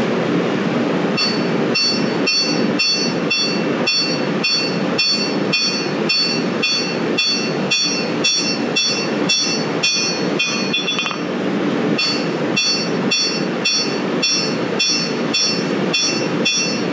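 Hand hammer planishing a hot 1085 steel knife blade on an anvil: light, even blows, about three a second, each with a bright ring from the anvil and hammer, pausing briefly near two-thirds of the way through before carrying on. This is the smoothing stage at lower heat, taking out dents with the flat face of the hammer. A steady rumble runs underneath.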